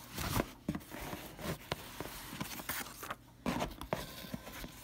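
Cardboard box and foam packing being handled: irregular rustles, scrapes and light knocks.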